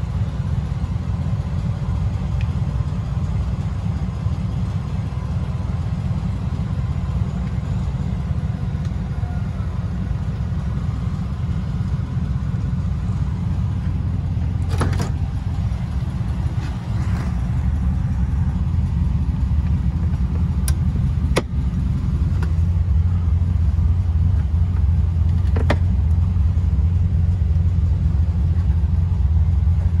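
Steady low rumble that grows louder in the second half, with a few sharp clicks and clunks in the second half as the 1969 Firebird's convertible top header is brought down onto the windshield frame and latched.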